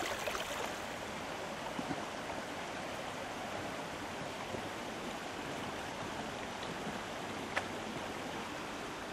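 Steady rush of a flowing river, with one short click about three-quarters of the way through.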